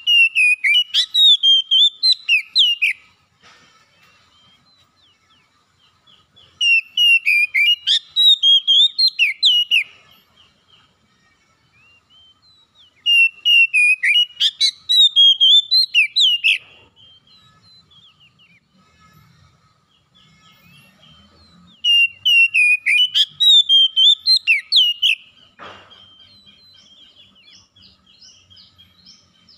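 Oriental magpie-robin singing: four loud bursts of rapid whistled notes that rise and fall, each about three seconds long, with softer twittering between the bursts.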